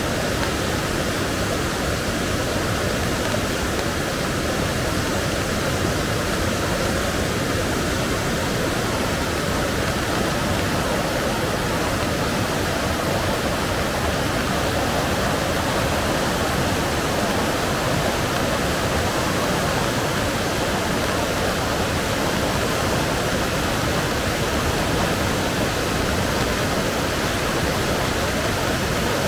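Rain-swollen river rushing in full flood, a steady, dense roar of water.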